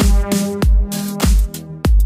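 Electronic background music with a deep kick drum a little under twice a second and held synth notes between the beats.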